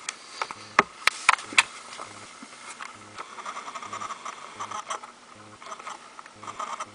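Close handling noise in a plastic feeding tub while a carpet python swallows a pre-killed rat: several sharp clicks in the first second and a half, then a soft crackling rustle.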